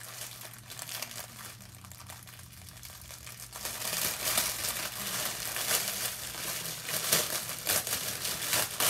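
Clear plastic wrapper crinkling and rustling in someone's hands as a mask is pulled out of it. It is soft at first and grows louder and busier about three and a half seconds in.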